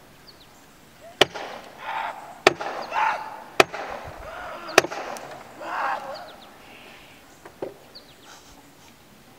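A hammer striking a wooden cross laid on the ground: four sharp blows about a second apart, then a lighter one later, as if driving nails. A person cries out between the blows.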